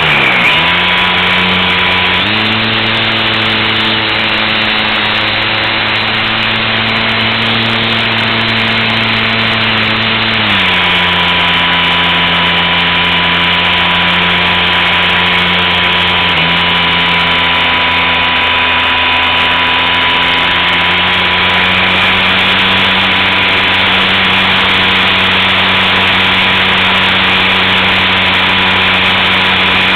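Onboard sound of a Super Cub LP model plane's electric motor and propeller running, with wind rushing over the camera. The motor's pitch changes with throttle: it dips briefly at the start, steps up about two seconds in, drops about ten seconds in and rises again near twenty seconds.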